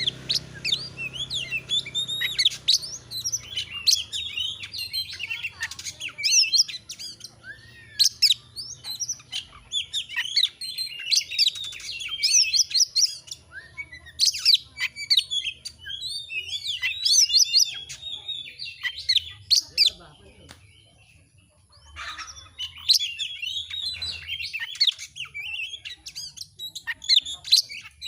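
Oriental magpie-robin (kacer) singing a busy, varied song of rapid chirps, whistles and trills, with a pause of about two seconds around twenty seconds in.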